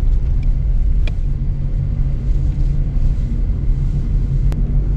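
Steady low rumble of a car's engine and tyres heard from inside the cabin while driving down a mountain road, with a faint click about a second in and another near the end.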